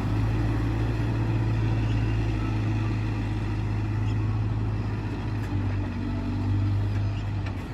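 Case 770EX backhoe loader's diesel engine running steadily with a deep drone, its pitch shifting slightly a little past halfway through.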